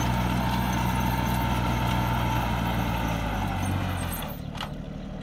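Kubota A211N compact tractor's diesel engine working steadily under load while pulling a disc plough. About four seconds in, the engine note drops and becomes quieter.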